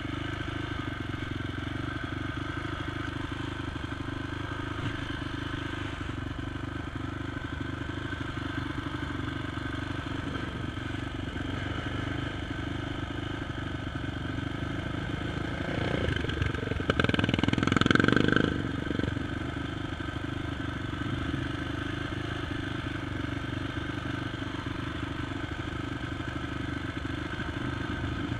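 Honda TRX450 quad's single-cylinder four-stroke engine running steadily at low revs, heard from the rider's seat. A little past halfway it surges louder for about two seconds, then settles back.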